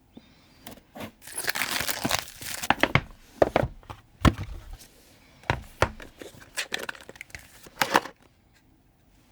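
Packaging being torn open, with about a second of ripping, then rustling and a series of light knocks and taps as the box and its contents are handled.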